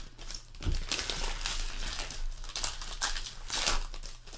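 Foil trading-card pack wrappers crinkling and ripping as hands tear packs open and crush the empty wrappers, in quick irregular rustles.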